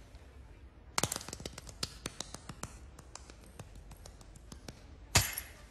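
Rapid hand slaps and pats on a bald scalp: a quick, irregular patter that thins out and grows fainter, then one louder, longer smack near the end.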